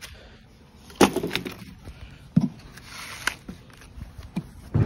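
Weathered wooden playset beam being struck and broken apart: a sharp crack of wood about a second in, followed by a duller knock and a few lighter knocks.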